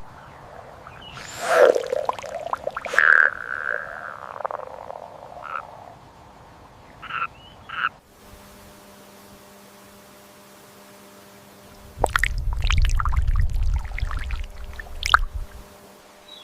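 Frogs croaking: several separate calls that rise and fall in pitch in the first half, with two short calls a little before the middle. Near the end comes a few seconds of low rumbling with sharp clicks.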